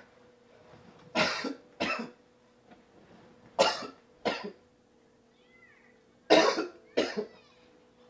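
A man coughing in three bouts of two coughs each, a bout every two to three seconds. The coughs are put on deliberately, faked as a sign of a sore throat.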